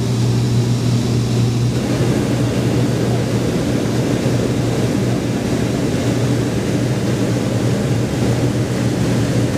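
Steady, loud engine drone of an aircraft heard inside its cabin in flight, a constant low hum with no change in pitch.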